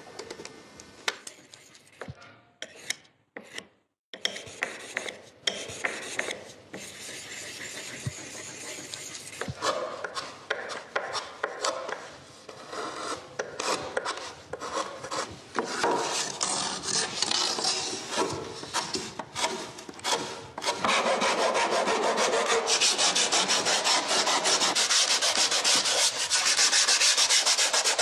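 A wooden accordion part being sanded by hand: quick scratchy rubbing strokes that turn louder and continuous about twenty seconds in. Before that, a few light clicks and a brief drop-out about three seconds in.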